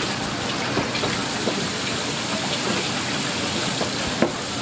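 Tap water running steadily from a faucet onto a plastic cutting board as a squid is rinsed under it, with a few small clicks and one sharp knock about four seconds in.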